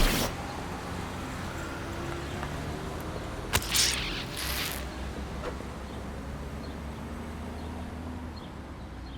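Steady low outdoor rumble like distant traffic, opening with a sudden loud onset, with two short hissy noises about three and a half and four and a half seconds in.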